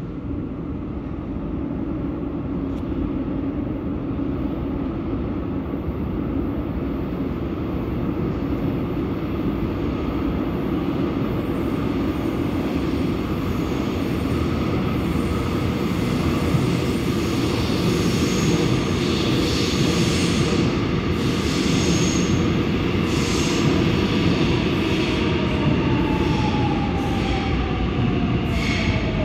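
Seoul Subway Line 7 train coming into the station through the tunnel: a steady rumble that builds up, with wheel clatter from a little past halfway and a whine falling in pitch near the end as the train slows.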